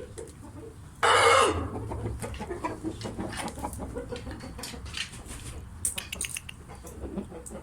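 Fighting rooster calling: one loud, harsh call about a second in, then scattered short clucks and small scuffling sounds.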